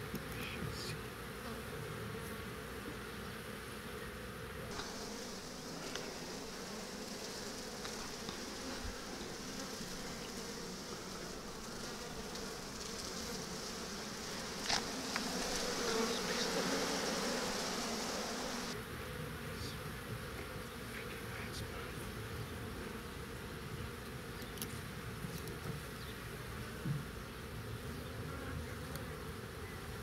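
Honeybees buzzing in an open hive: the steady hum of many bees on the frames, swelling a little louder for a few seconds about halfway through, with a few faint clicks.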